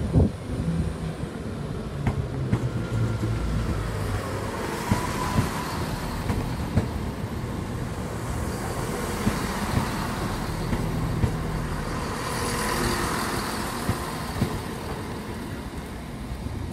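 A passenger multiple-unit train running slowly past close by: a steady low engine hum with rolling noise and a few sharp clicks from the wheels, the hiss swelling as the carriages go by.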